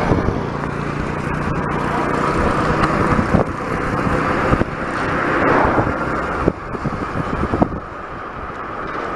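Street traffic heard from a moving bicycle: a steady rushing noise with the low hum of a nearby vehicle engine, and a few short knocks.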